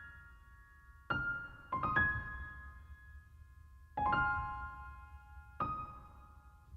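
Soft, slow piano music: a few sparse notes and chords struck a second or two apart, each left to ring and die away.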